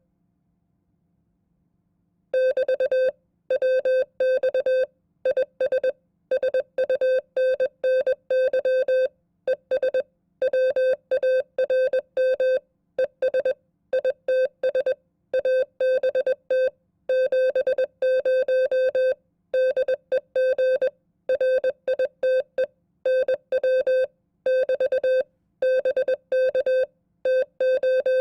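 Morse code (CW) sent at 20 words per minute: a single steady beep tone keyed on and off in short dits and longer dahs, with gaps between characters and words. It starts after about two seconds of silence and then runs on as continuous code.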